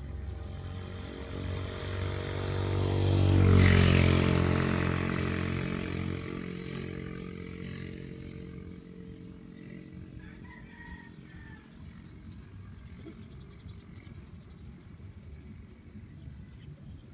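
A motor vehicle engine passing close by: it swells to a peak about three and a half seconds in, then fades away over the next few seconds. A faint steady high-pitched whine runs underneath.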